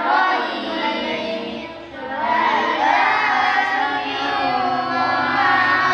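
Group of boys reciting the Qur'an aloud in unison, a melodic tartil chant of many overlapping children's voices, with a brief pause for breath about two seconds in.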